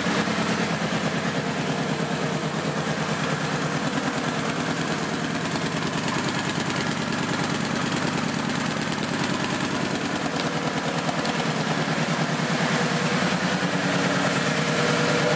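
Kawasaki Vulcan Vaquero 1700's V-twin engine idling steadily with an even, fast pulse.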